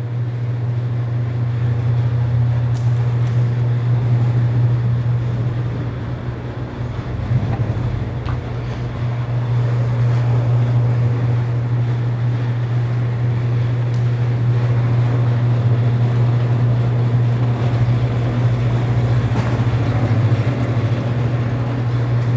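Bluedog BWS-80 HD electric wire stripping machine running with a steady low hum while cable is fed through one of its cutting holes.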